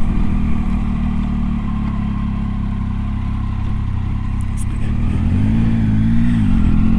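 Triumph Tiger 800 XCa's three-cylinder engine running steadily at low revs while the motorcycle rides through a right turn. About five and a half seconds in, the revs dip briefly and then rise again.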